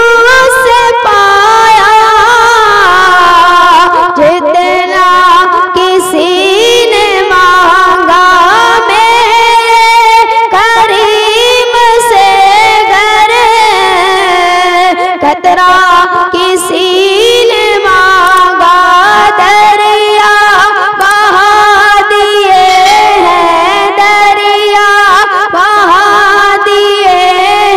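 A boy's unbroken voice singing a devotional Urdu kalam (naat) into a microphone, in long held notes with ornamented turns. One voice alone, with no instruments.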